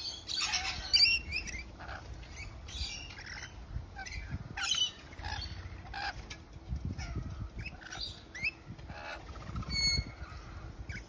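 Rainbow lorikeets calling: a stream of short, shrill screeches and chattering chirps, several birds at once, the loudest burst about a second in.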